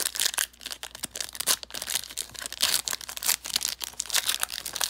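Crinkling and tearing of a trading-card pack's plastic wrapper as it is ripped open and handled, a dense run of irregular crackles.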